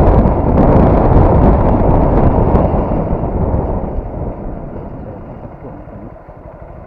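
Heavy wind buffeting the microphone while riding a motorcycle: a loud, low rumble that dies away over the last few seconds.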